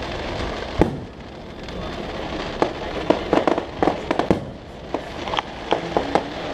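Fireworks going off: a single deep boom about a second in, then irregular clusters of sharp cracks and pops.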